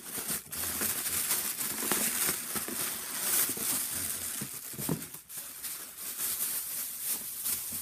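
Packaging rustling and crinkling continuously as a shipping box is unpacked by hand.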